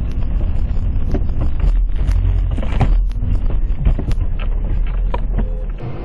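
Sound of a car in motion picked up by a dash cam: a heavy low rumble with many sharp knocks and rattles scattered through it.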